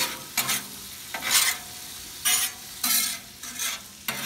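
Metal spatula scraping and turning ham and turkey on a hot Blackstone griddle top, in quick repeated strokes over the sizzle of the meat warming on the steel.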